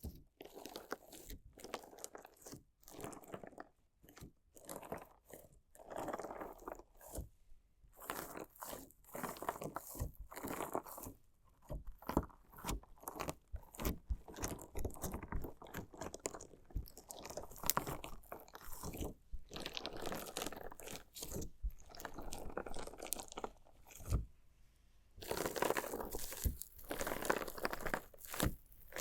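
Slime jelly with small decorative stones being cut and pressed, making a run of irregular, crunchy squelches with a short pause about three quarters of the way through.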